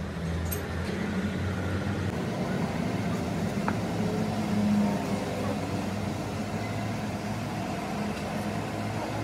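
A steady low mechanical hum, with a single faint click about three and a half seconds in.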